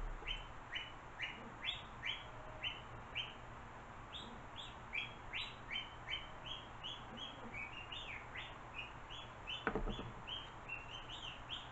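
A bird chirping over and over, short high chirps about two a second, with one sharp knock near the end.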